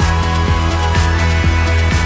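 Background electronic music with a steady kick-drum beat, about four beats a second, over a deep bass.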